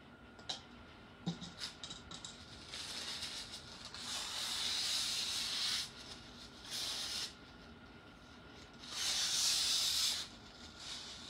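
A few light clicks, then three bursts of hissing, the first about three seconds long, a short one, and a louder one of about a second near the end.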